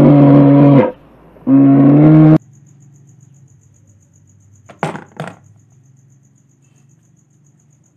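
Two long, low, steady animal calls, the second ending abruptly about two and a half seconds in. Then a small plastic toy animal drops into a plastic basket with two quick knocks about five seconds in, over faint, rapid cricket chirping.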